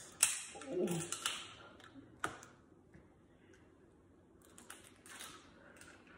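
Close-up eating sounds of snow crab legs: a few sharp clicks and crackles of shell and long nails in the first two and a half seconds, with slurping and smacking as the crab meat is pulled out and eaten.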